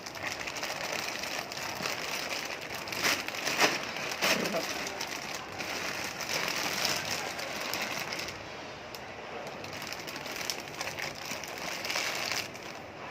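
Rustling and crinkling of plastic bags of cardboard jigsaw puzzle pieces being handled, with loose pieces pattering, and a few sharper clicks about three to four seconds in.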